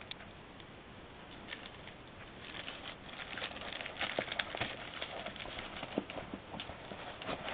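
Rubber self-inflating whoopee cushion sputtering and crackling as air is forced out of it. The sound starts faintly about two and a half seconds in and grows louder, an irregular run of rattly clicks.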